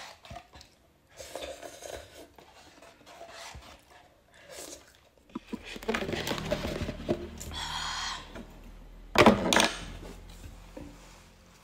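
Instant-noodle cups and their foil packaging being handled on a table: rustling and crinkling with small knocks as the cups are moved and restacked. The loudest is a pair of sharp knocks about nine seconds in.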